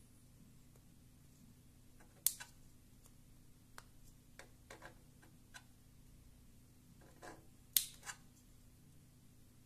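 Small metal prying tool ticking and clicking against the plastic shell of a Plantronics Voyager Edge Bluetooth headset as it is worked apart: light scattered ticks, with two sharper clicks about two seconds in and near eight seconds.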